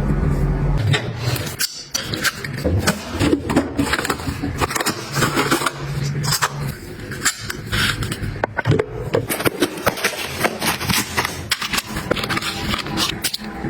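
Household items being handled and set down: many irregular short taps, clicks and scrapes of containers and packaging, with a low hum that fades about a second in.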